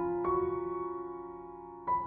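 Slow, soft background piano music. A few notes are struck just after the start and ring on, fading, until new notes come in near the end.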